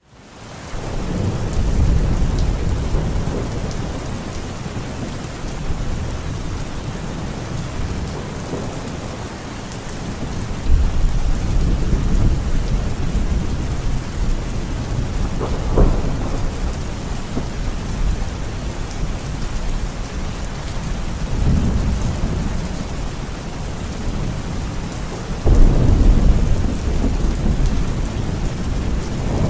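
Heavy rain pouring steadily, fading in over the first second, with low rolls of thunder rumbling under it; sudden louder rumbles come about ten seconds in and again near the end.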